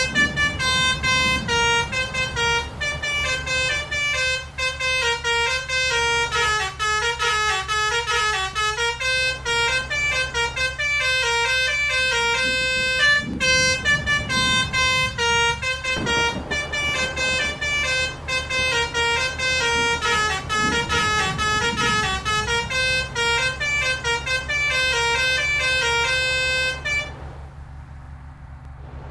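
Basuri multi-tone "telolet" bus horn playing a stepping melody of several notes without a break, cutting off about 27 seconds in. The bus's engine runs underneath.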